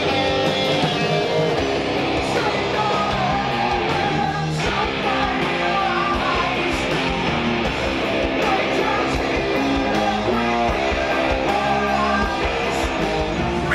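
Rock band playing: electric guitars, bass guitar and drums, with a singer at the microphone.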